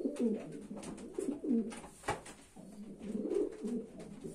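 Racing pigeons cooing: a run of low, warbling coos one after another, with a sharp click at the start and another about two seconds in.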